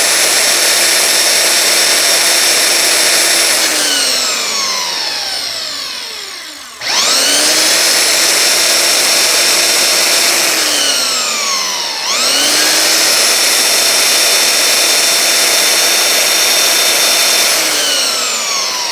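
Makita 9403 4x24-inch belt sander running with a loud, steady whine while a wooden stick is pressed against the belt to grind it down. The motor is switched off and coasts down with falling pitch, then is switched back on, twice, and is coasting down again near the end.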